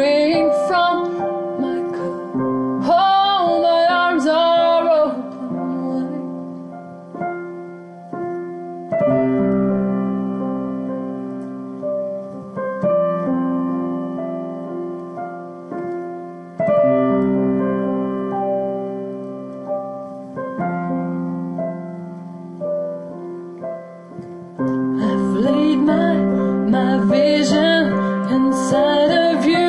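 Slow solo piano playing sustained chords, each struck and left to ring for about four seconds. A woman's voice sings a wordless, wavering melody over the chords at the start and again from about twenty-five seconds in.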